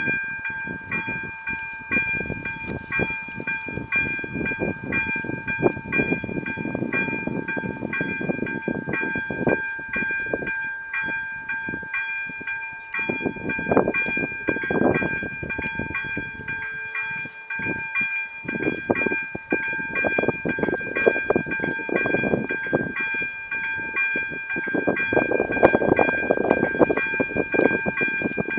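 Electronic level-crossing bell, type EL ZV-02, ringing in fast, evenly repeated strokes with a steady ringing tone. This is the crossing warning that a train is approaching.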